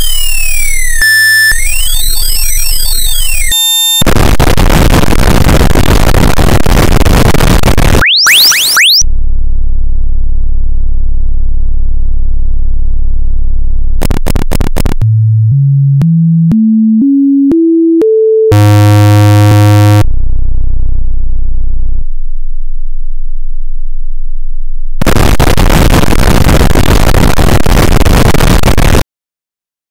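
Electronic test-tone collage: crossing sine sweeps, blocks of loud hiss, a low steady buzzing tone, and a stair-step of about eight short tones rising in pitch. It cuts off suddenly near the end.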